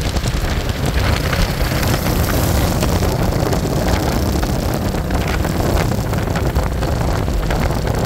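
A moving vehicle's engine and road noise with wind buffeting the microphone, loud and steady throughout.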